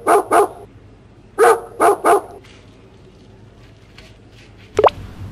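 Dog barking in two quick bursts of three barks, about a second and a half apart, followed near the end by one short, sharp sound.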